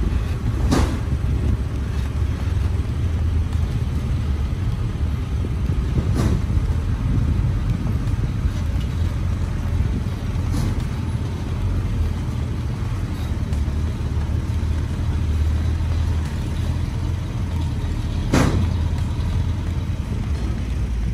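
Diesel engine of a sugarcane-laden Mitsubishi Fuso truck running at low speed as it manoeuvres, a steady low rumble. Three short, sharp sounds cut through it: about a second in, around six seconds, and near the end.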